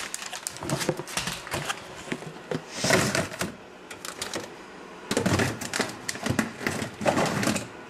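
Irregular clatter of kitchen items being handled: quick clicks, knocks and rustles in bunches, loudest about three seconds in and again over the last three seconds.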